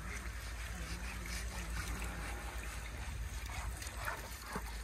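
Water from a garden hose running and trickling over an elephant's hide and a plastic tarp, with a steady low rumble underneath.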